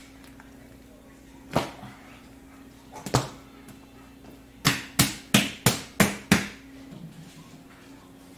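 A large mass of soft dough slapped and thumped against a stone worktop as it is folded and worked by hand. There are two single slaps, then six in quick succession, about three a second, in the middle. A low steady hum runs underneath.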